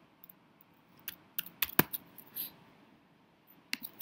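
Scattered sharp keystroke and click taps on a computer keyboard and mouse, in a cluster of several taps between one and two seconds in and a few more near the end.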